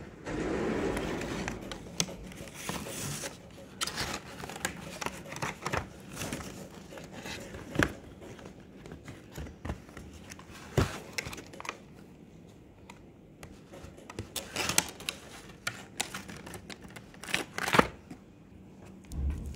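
Cellophane-wrapped sticker packs and a plastic compartment tray being handled: crinkling wrappers with scattered clicks and taps, a few of them louder, near the start and in the last few seconds.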